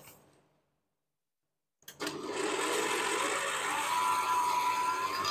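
Electric stand mixer starting up about two seconds in and running steadily, its balloon whisk whipping cream for crème chantilly.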